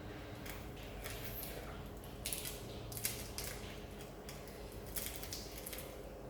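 Crunchy deep-fried fish being chewed: a run of crisp crunches, about two a second.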